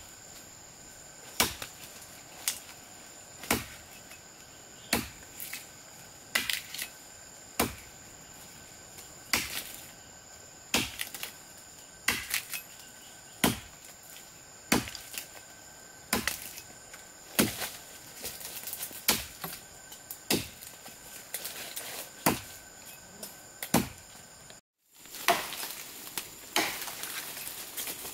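Chopping with a hand tool: a sharp blow about every second and a quarter, evenly paced, over a steady high buzz of insects. After a brief dropout near the end, the blows come faster and rougher.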